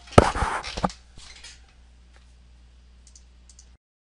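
A short burst of clattering, rustling noise with a couple of low knocks, followed by a few faint clicks, then the sound cuts off suddenly to silence.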